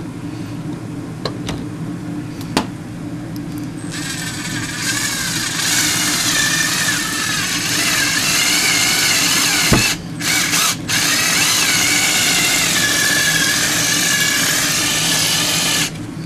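Electric drill with a hole saw cutting through a fridge's back panel. The motor runs steadily at first, then about four seconds in the cutter bites into the panel with a loud, dense cutting noise and a wavering whine that carries on until near the end. The cut stops briefly twice about ten seconds in.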